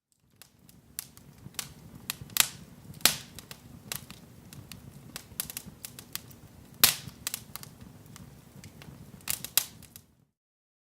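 Fire crackling: irregular sharp pops and snaps over a faint low rumble, the loudest pops about 2.5, 3 and 7 seconds in. It fades in just after the start and cuts off about a second before the end.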